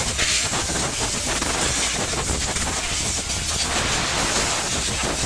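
Compressed-air blow gun hissing steadily as it blows water out of a freshly washed motorcycle's switches and parts.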